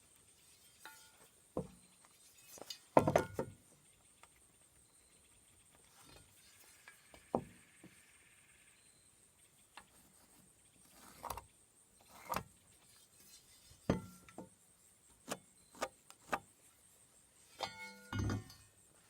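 Scattered knocks and clinks of wood and tools being handled on a barn-framing job, with a louder clatter about three seconds in and a short ringing knock near the end.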